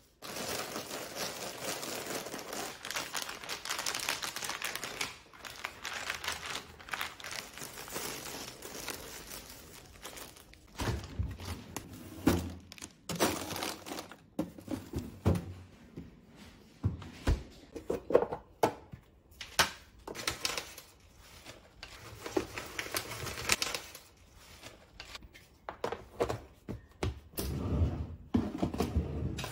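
Plastic food packaging crinkling and rustling as it is handled for the first several seconds, then scattered knocks and thunks as packs are set down and put into a refrigerator drawer.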